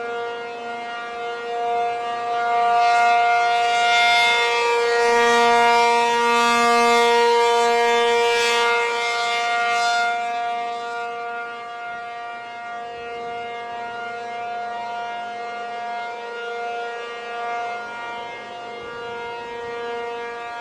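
P-50 tornado siren sounding a steady, held tone. It swells louder about two seconds in and eases back down around ten seconds in.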